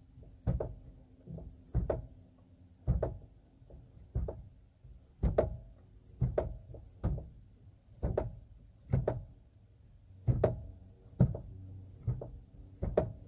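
Repeated sharp metal knocks, about one a second at uneven spacing, from a wrench working on the fan clutch behind the fan shroud while the engine fan is being reinstalled.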